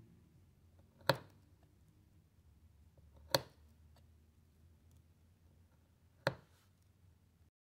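A Boker Kalashnikov knife blade chopping through paracord on a wooden board: three sharp knocks a couple of seconds apart as the blade cuts through and meets the wood.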